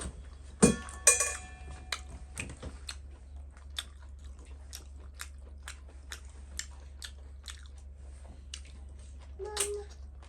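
Close-up chewing of fatty pork with small wet mouth clicks about twice a second. About a second in come two loud clinks with a brief ring, and near the end a short hum.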